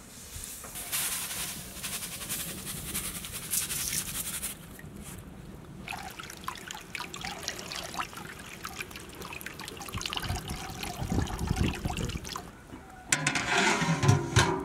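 Water with whole spices heating in a large black cooking pot over a wood fire, trickling and bubbling, with small crackles from the fire. Near the end a large metal lid is set onto the pot with a loud clatter.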